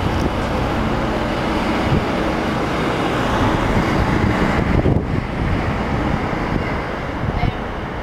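Road traffic on a city street: a steady rush of vehicle noise, swelling as something passes and easing off about five seconds in.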